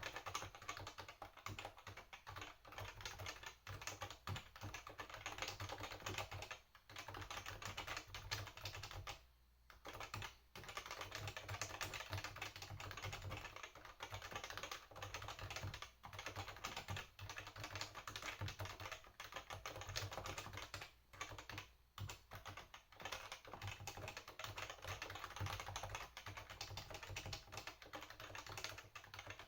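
Continuous fast typing on a Topre Realforce 87UB tenkeyless keyboard, the standard (non-silent) model with Topre electrostatic capacitive switches: a dense run of keystrokes with a few brief pauses.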